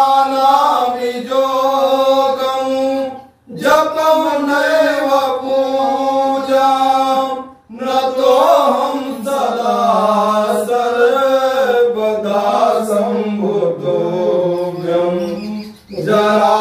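Male voice chanting Sanskrit Rudrabhishek mantras in long, sustained phrases. Short pauses for breath fall about three and a half and seven and a half seconds in, and again near the end.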